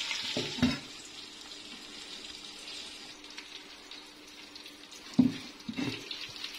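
Marinated chicken pieces frying in oil in a pan over low heat, a steady sizzle. The sizzle drops sharply less than a second in and goes on faint, with a few knocks against the pan, two of them about five and six seconds in.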